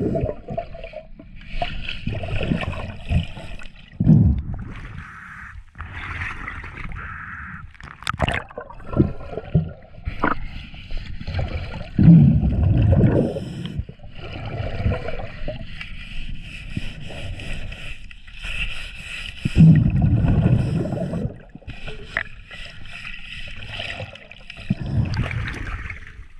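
Underwater breathing through a diver's regulator: a steady hiss on each inhale, then a low bubbling rumble as each exhale escapes, repeating every few seconds.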